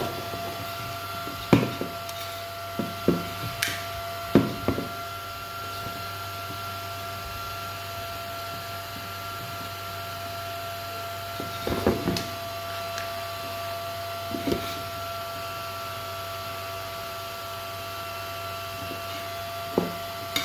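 Scattered short knocks and clicks of small parts and tools being handled on a workbench, in small clusters, over a steady electrical hum with a faint whine.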